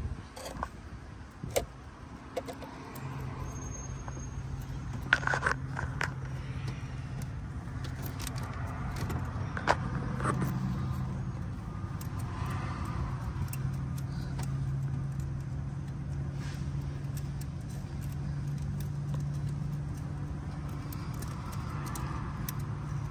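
Milwaukee Fuel brushless vacuum running with a steady low hum while its thin adapter tube is worked down a spark plug tube, sucking out loose crud. The hum is weaker for the first couple of seconds, and the tube clicks and rattles against the hole now and then, most sharply about five and ten seconds in.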